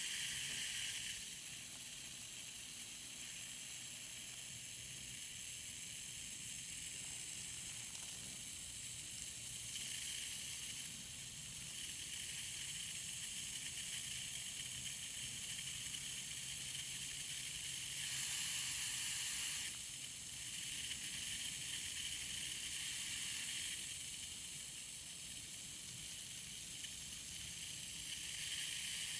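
Spray from a garden hose nozzle hissing steadily, swelling louder and easing off several times.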